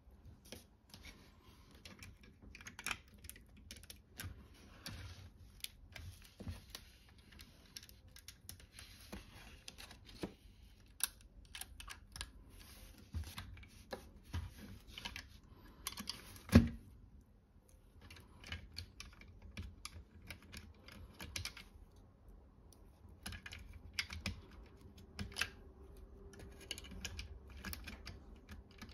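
LEGO bricks being handled: irregular small plastic clicks and taps as pieces are pulled off and pressed onto a model, with one much louder knock about two-thirds of the way through.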